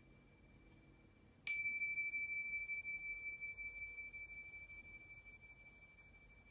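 A small handheld metal chime struck once about a second and a half in: one clear, high ringing tone that holds and slowly fades over several seconds. The fainter ring of an earlier strike at the same pitch dies away before it.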